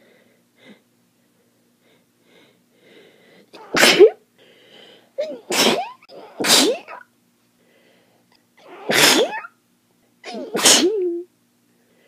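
A person having an allergic sneezing fit: five wet sneezes, the first about four seconds in and the rest at uneven gaps, with quieter breathing between them. The sneezing is a hay-fever reaction to pollen.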